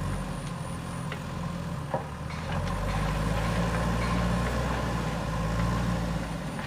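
Heavy diesel engine of earthmoving machinery running steadily, getting louder about two and a half seconds in, with a couple of short metallic knocks.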